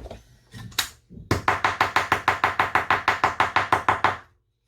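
Small hammer tapping rapidly and evenly on a plate, about eight light blows a second for roughly three seconds, beating it flat, after a single strike a second earlier.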